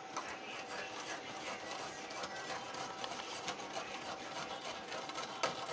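A drink being stirred by hand in a cup, with quick, irregular scraping and clicking of the utensil against the cup and a sharper knock near the end.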